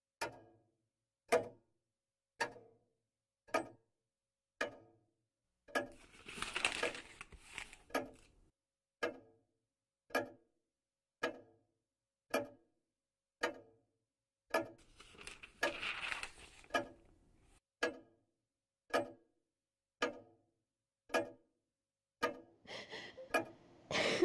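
Clock ticking steadily, about one tick a second. There are two stretches of soft rustling noise in the middle, and a person begins to whimper near the end.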